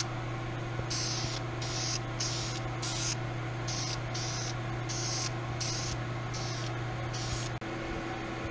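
Aerosol spray-paint can hissing in about a dozen short bursts as paint is sprayed onto a metal tool, over a steady low hum.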